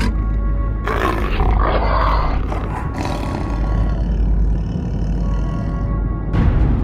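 Growling and snarling of a large animal, rough and drawn out, over a low, steady droning music bed with held tones; a sharp burst of noise comes near the end.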